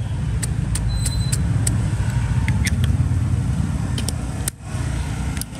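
Low rumble of a passing motor vehicle, loudest around the middle and fading out near the end. Over it come a dozen or so sharp, light metallic clicks from a Zippo lighter being handled.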